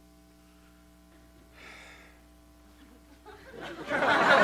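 Near silence with a faint steady hum, then audience laughter swells up about three and a half seconds in and grows loud by the end.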